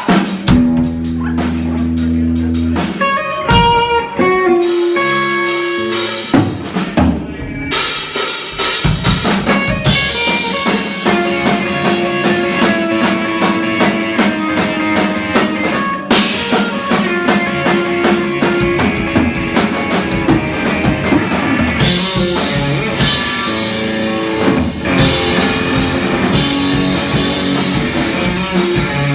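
Live rock band playing: drum kit and electric guitar, starting sparse with held notes for the first few seconds before the full band comes in.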